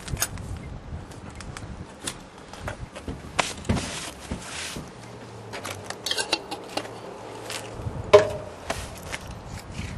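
Scattered clinks, taps and rustling of hands working at the air-intake opening of a wood-gas generator, with a brief rush of noise around four seconds in and a sharper knock near eight seconds.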